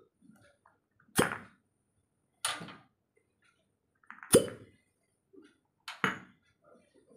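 Glass cupping cups being pulled off the skin one after another, each breaking its suction with a sharp pop; four pops, roughly one and a half seconds apart.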